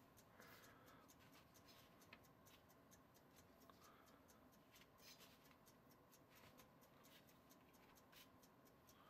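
Near silence: faint rustling and scattered light taps of hands rolling baked cookies in powdered sugar on a plastic lid.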